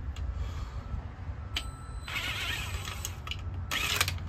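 ACDelco cordless screwdriver on a distributor cap's hold-down screw: a few clicks of the bit against the screw and short runs of the tool, the loudest about four seconds in.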